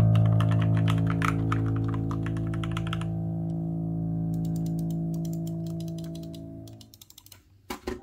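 Rapid typing on an RK61 mechanical keyboard with linear Gateron Yellow switches, a quick run of key clacks over a held background music chord. The typing thins to scattered clicks after about three seconds, and the chord fades out near the end.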